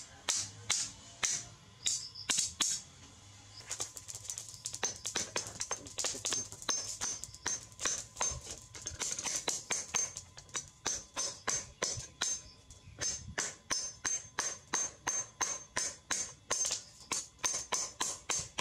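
Hand hammer striking a perforated steel strip cut from a motorcycle brake disc against a steel plate to hammer it flat: sharp metallic clangs with a bright ring. The blows are irregular at first, then steady at nearly three a second from about four seconds in.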